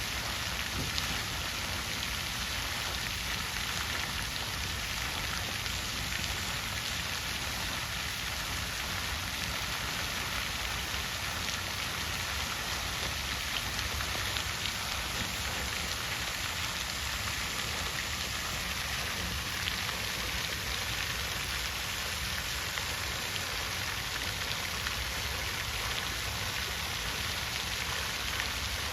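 Water fountain splashing steadily, a continuous even patter of falling water and droplets.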